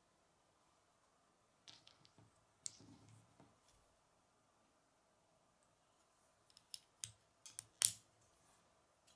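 Small plastic Lego bricks being handled and snapped together: a few light clicks about two seconds in, then a quick run of sharper clicks near the end, the loudest as a brick is pressed home.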